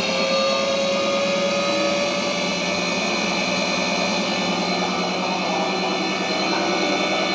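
AQUA front-loading washing machine running, a steady motor whine whose pitch drifts slowly down.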